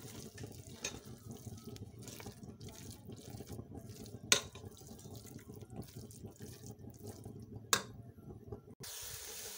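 Silicone spatula stirring and scraping a thick grated-carrot halwa mixture around a nonstick pan, an uneven rustling with small ticks. Two sharp clicks stand out, about four and eight seconds in, and the sound turns to a steadier hiss near the end.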